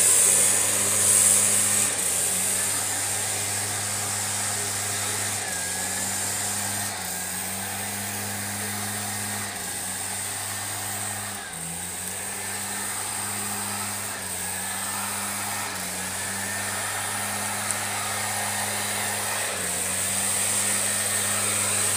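Zenoah EBZ5100 backpack leaf blower's two-stroke engine running steadily at working speed, with the rush of air from the blower tube. The engine note steps slightly up and down every few seconds, and the sound is louder in the first two seconds.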